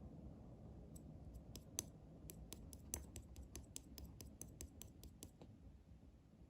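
Slime being squished and poked by hand, giving a quick run of small crisp clicks and pops, about four or five a second, that stops after about five seconds.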